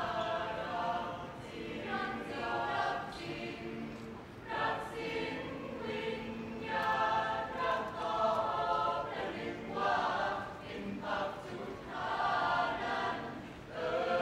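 A choir singing a slow song in phrases of a second or two, with short breaks between them.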